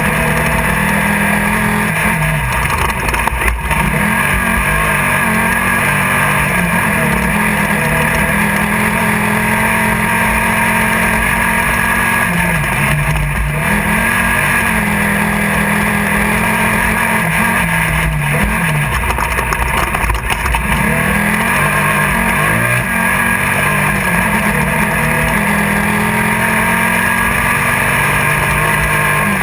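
Class 1600 off-road race car's air-cooled VW flat-four engine running hard under load, heard from inside the car. Its pitch drops and climbs back several times as the throttle is lifted and reapplied, over a constant noisy rush.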